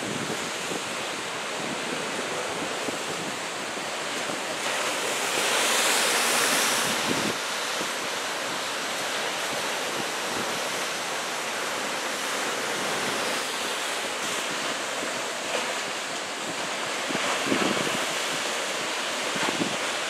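Ocean surf from a big typhoon swell, waves breaking and washing over rocks, with wind buffeting the microphone. A louder rush swells up about five seconds in and lasts a couple of seconds.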